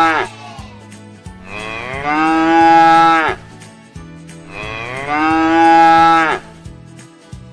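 Cow mooing: the end of one moo, then two long moos of about two seconds each, each dropping in pitch as it ends.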